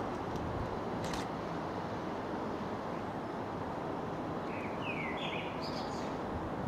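Steady outdoor background noise with a bird chirping briefly about five seconds in, and a short click about a second in.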